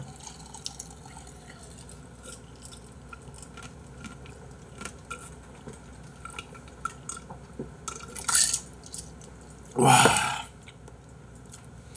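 Table sounds of a mukbang meal: small clinks and taps of dishes and a glass, and a man drinking cola from the glass. About eight seconds in comes a short breathy burst, then a drawn-out "wa" from him near the end.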